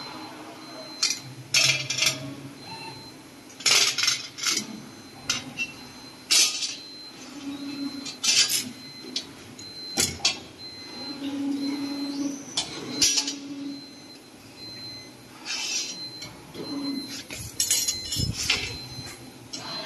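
CNC wire bending machine at work, bending steel wire into a rectangular basket frame: a run of sharp, irregular metallic clanks and clinks, with a few short motor hums between them.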